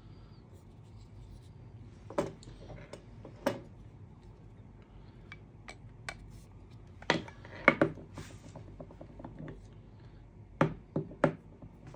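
Items being handled and set down on a hard surface: a scattering of sharp, short clicks and knocks, a few at a time, in a small room.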